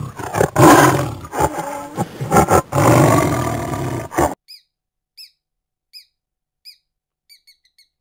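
Tiger roaring and growling in a run of loud, rough calls that stop about four seconds in. Then a short, high, falling chirp repeats about every three quarters of a second, and comes faster near the end.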